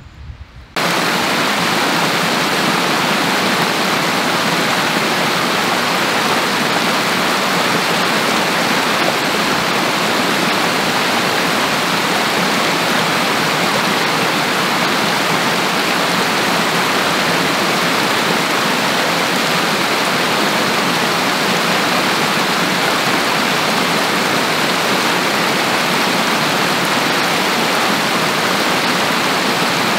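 Snowmelt-fed mountain stream rushing, a loud, steady, even rush of water that starts abruptly about a second in.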